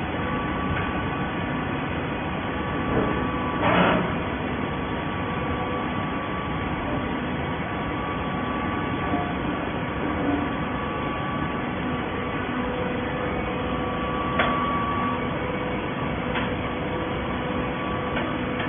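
Scrap-cardboard baler machinery running with a steady mechanical noise and faint steady tones. There is a brief louder rush about four seconds in and a sharp knock about fourteen seconds in.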